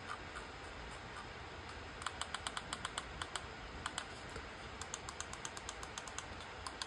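Keychron M4 wireless mouse buttons clicked over and over, in a demonstration of how they sound. A few faint clicks come first, then a run of clicks starts about two seconds in, and a faster, louder run of about seven clicks a second follows near the end. The clicks are somewhere between quiet and loud.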